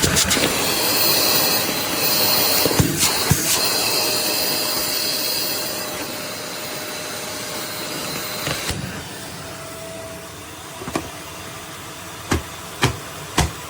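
Russell Hobbs Compact XS bagless cylinder vacuum cleaner running, a steady rush of air with a high whine, dropping in level between about six and nine seconds in. A few sharp knocks near the end.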